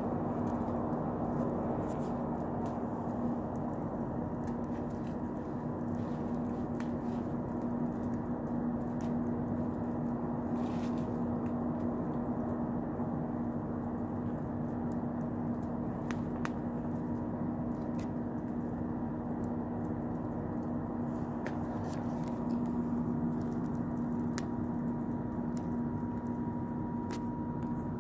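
Wood campfire burning strongly: a steady rush of flames with scattered sharp crackles and pops from the burning logs, over a steady low hum.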